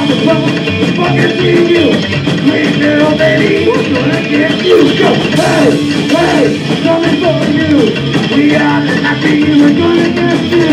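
Live psychobilly band playing loud and fast: upright bass, electric guitar and drum kit.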